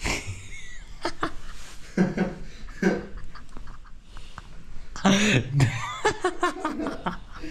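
People's voices: coughing and laughter in short bursts, with a few snatches of talk about five seconds in.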